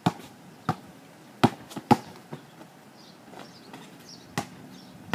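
Basketball bounced on asphalt while dribbling in for a layup: several bounces in the first two seconds, the last two loudest, then a pause and a single further impact about four and a half seconds in.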